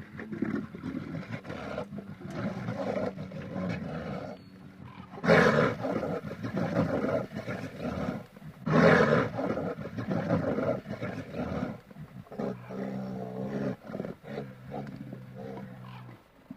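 Big cat roaring and growling in rough, repeated calls, the two loudest roars starting about five and nine seconds in. A steadier, deeper call follows over the last few seconds.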